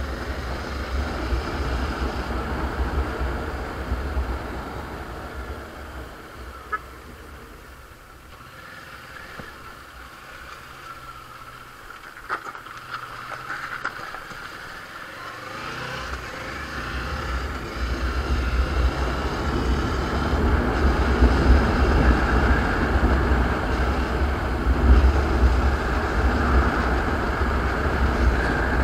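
Kawasaki Versys 650's parallel-twin engine running while riding, under heavy wind buffeting on the camera microphone. The sound drops for a while around the middle as the bike slows, then builds steadily again through the second half as speed picks up.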